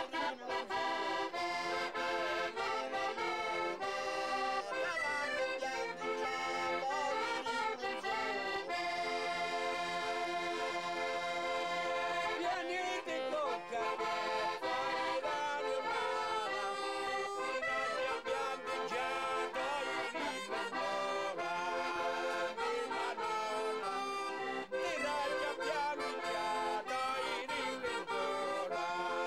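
Accordion playing a traditional folk tune, sustained chords under a moving melody line.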